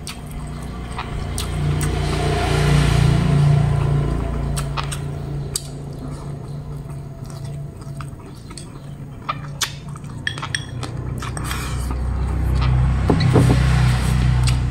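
Close-up chewing of crispy fried pork belly with a crackling skin, in loud swells about two seconds in and again near the end. Scattered sharp clicks of wooden chopsticks against a ceramic bowl.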